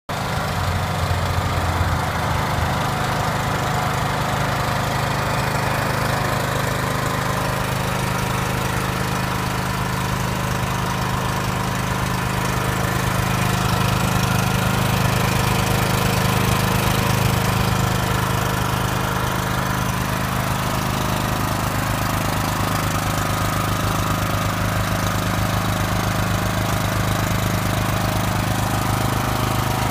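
Crommelins P80E 8kVA portable generator's Subaru petrol engine running steadily; its note shifts slightly about two seconds in, then holds steady.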